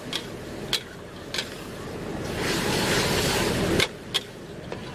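Metal spatula clanking and scraping against a steel wok as meat and vegetables are stir-fried in sauce, with a few sharp clanks over a hissing sizzle that swells in the middle.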